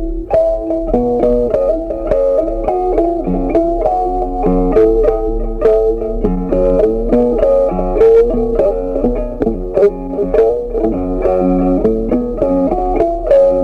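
Background instrumental music: a plucked guitar melody of quick, sharply struck notes.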